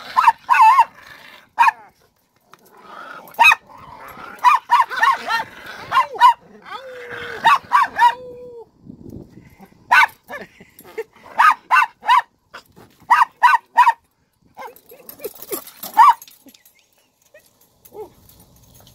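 Small dogs barking and yapping in play: short, high-pitched barks in quick runs of two to four, with brief pauses between runs, dying away near the end.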